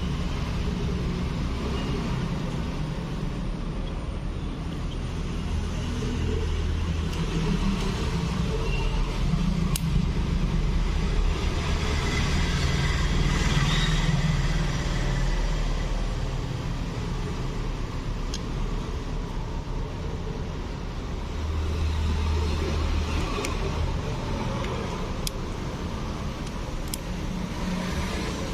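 Steady low rumble of road vehicles that swells and fades, with a few faint sharp clicks.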